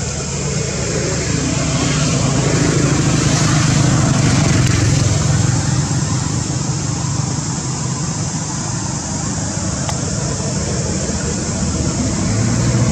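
A motor vehicle's engine running steadily, a continuous low hum that grows louder about four seconds in and again near the end.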